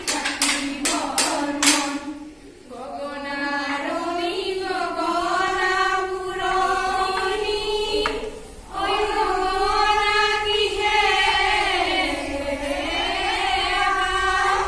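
A group of women singing a Jeng Bihu song together, unaccompanied. In the first two seconds a run of sharp claps, about three a second, goes with the singing and then stops. The singing breaks off briefly a little after the middle and starts again.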